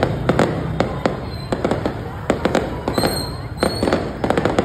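Aerial fireworks bursting overhead: a rapid, irregular run of sharp cracks and bangs over a steady low rumble, with two brief high whistling tones about three seconds in.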